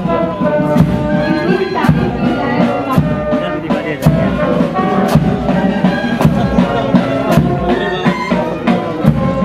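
Music with held instrumental notes over a steady beat.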